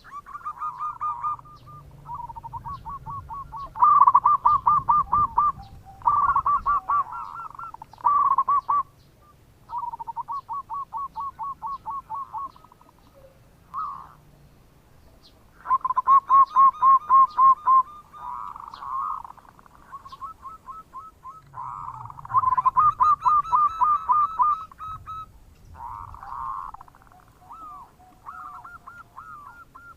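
Zebra doves (perkutut) cooing their 'bekur' song: phrase after phrase of rapid staccato coo notes, each phrase lasting one to two seconds, with short pauses between and some phrases overlapping.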